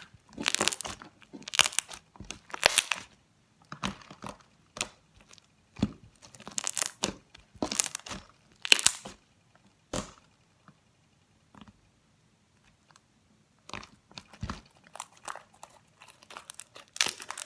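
Slightly sticky homemade slime being squeezed, stretched and pulled apart by hand, giving irregular crackling and popping clicks, with a short lull about halfway through.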